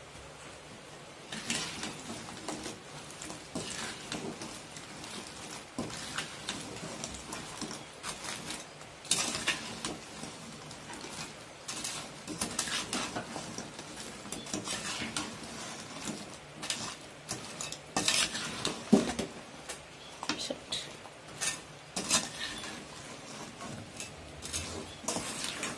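A metal spatula scraping and clinking against a steel kadai as fried fish pieces are stirred into hot spiced oil and masala for fish pickle, in irregular strokes.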